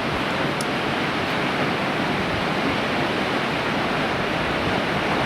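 Kegon Falls (Kegon-no-taki), a high waterfall: a steady rush of falling water, an even noise without pause.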